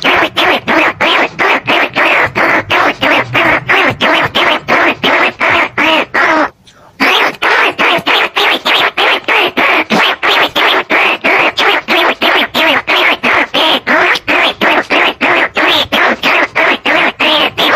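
Recorded lure call of greater bandicoot rats and field rats: rapid calls repeating about four to five times a second, with one short break about six and a half seconds in. It is a decoy sound played to draw the rats to a trap.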